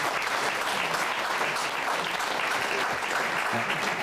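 A small studio audience applauding steadily.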